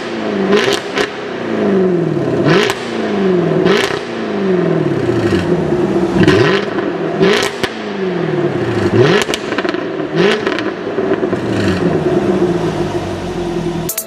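V8 car engine revved again and again, about ten times, each rev rising quickly and then sinking back toward idle, with a sharp crack at the top of many of them.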